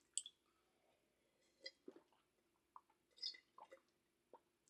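Faint, scattered chewing: a person eating Chinese takeout, with small wet mouth clicks every second or so.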